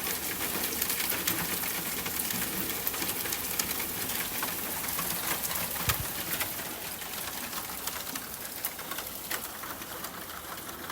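Steady rain falling, an even hiss dotted with the ticks of individual drops landing, with a single low thud about six seconds in. It grows a little quieter toward the end.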